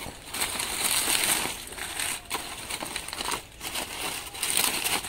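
Dry banana leaves rustling and crackling as they are grabbed and pulled up by hand from the leaf litter, in irregular surges.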